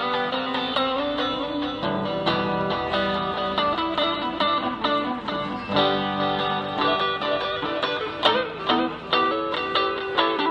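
Solid-body electric guitar played through a Roland Cube combo amp, picking a continuous run of single notes and chords with no singing. About eight seconds in, one note is bent and wavers.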